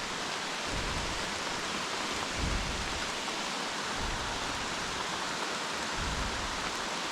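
Heavy rain falling, a steady even hiss, with a few soft low rumbles that come and go.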